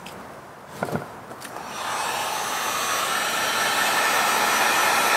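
Electric heat gun switching on about two seconds in and blowing steadily at heat-shrink tubing on a battery cable lug, after a brief knock about a second in.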